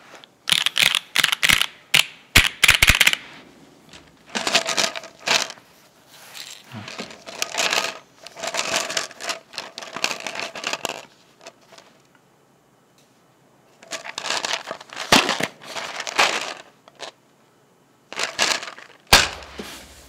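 Keystrokes on a KMG TKL mechanical keyboard with an aluminium plate and Kailh red stem switches in Novelkeys Cream POM housings for the first few seconds. Then a glass jar of loose keyboard switches is shaken, the switches rattling against the glass in several bursts with a ringing note, and a single sharp knock near the end.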